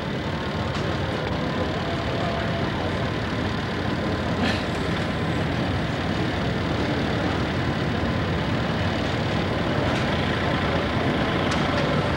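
Farm tractor engine running hard under heavy load, pulling a weight-transfer sled down a pulling track; a steady, loud, rumbling drone that grows slightly louder toward the end.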